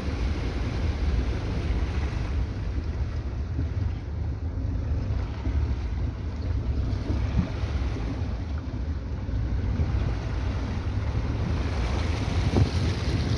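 A car driving slowly through deep floodwater, heard from inside the cabin: a steady low engine and road rumble with water rushing and splashing against the car body, the splashing louder near the end.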